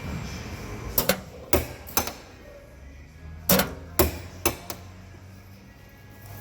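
Hammer blows, about eight sharp strikes in two irregular bursts: a cluster between one and two seconds in, then another from about three and a half to five seconds in.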